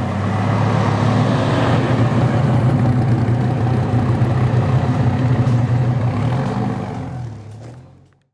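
Dodge Viper's V10 engine running with a steady, deep exhaust note, fading out near the end.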